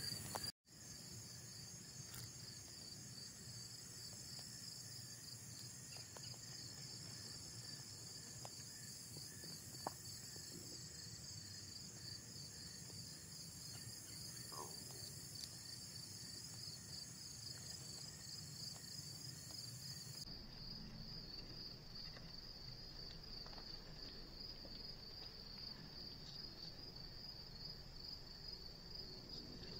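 Insects chirping in a steady, rapidly pulsing high-pitched chorus, with one brief click about ten seconds in.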